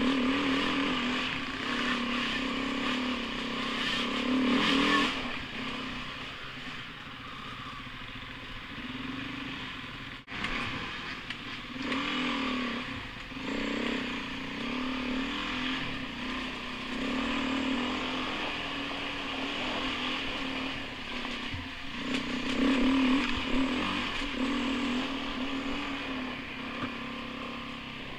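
Off-road motorcycle engine heard from on the bike as it rides a dirt trail, the revs rising and falling again and again with the throttle.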